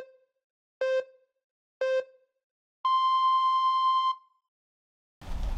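Electronic countdown beeps: three short lower beeps about a second apart, then one long higher beep held for over a second, the pattern of a start signal. Background noise comes in near the end.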